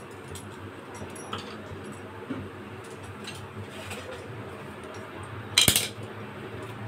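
A kadhai heating on a lit gas stove burner: a low steady hiss, with a brief metallic clink about five and a half seconds in.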